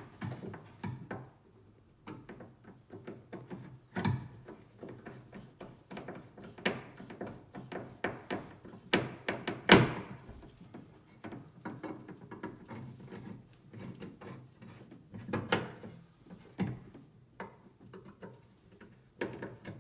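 Irregular knocks, clunks and taps of objects being handled, with one sharp, loud knock about ten seconds in.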